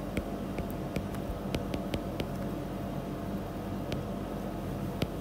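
Steady low hum and hiss of room tone, with faint, scattered light ticks from a stylus tapping on a drawing tablet during handwriting.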